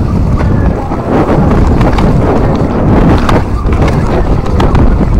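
Wind buffeting the camera microphone of a mountain bike at speed, over the rumble of its tyres rolling on a rocky dirt trail, with frequent short rattles and knocks from the bike.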